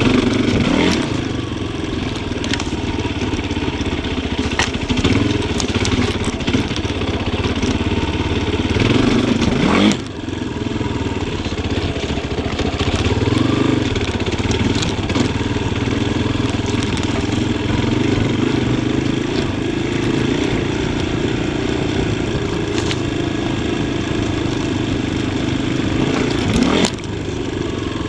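Yamaha Tricker XG250's single-cylinder four-stroke engine running under constantly changing throttle as the bike is ridden off-road. The pitch climbs and then falls away suddenly about ten seconds in, and again near the end, with scattered knocks and clatter in between.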